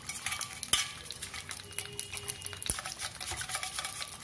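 Wire whisk beating thick curd in a stainless steel bowl: a rapid, scratchy clatter of the wires against the metal, with a couple of sharper clinks.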